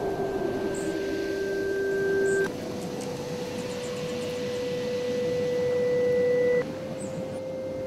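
Strong gusty wind rushing, with a steady whistling tone over it whose pitch jumps slightly twice.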